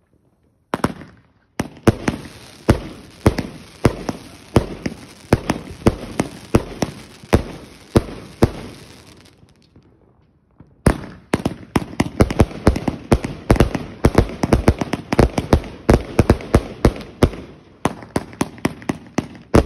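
A 118-shot consumer firework cake firing: a string of sharp shots, about two a second, that thins out and stops about ten seconds in. After a pause of about a second, a faster and denser barrage of shots starts and keeps going, with a brief lull near the end.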